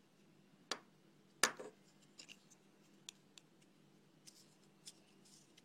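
Folding pocket knife being handled and opened: a click just under a second in, a louder sharp click about a second and a half in, then several lighter ticks and taps.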